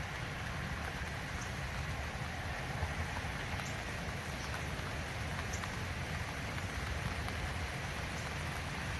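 Steady rain falling: an even hiss with a low rumble underneath that holds level throughout.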